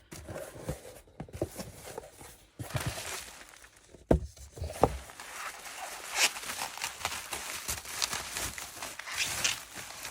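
Packaging being handled and opened by hand: irregular crinkling and rustling of wrapping, with two louder knocks about four and five seconds in as the package is set down or moved.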